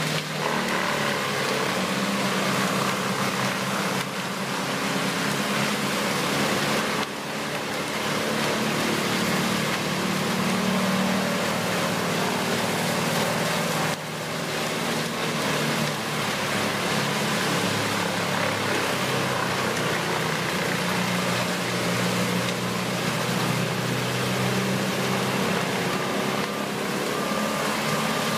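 Whole tree chipper running under load: a steady engine drone under a loud rush of noise, with brief dips in level about 7 and 14 seconds in.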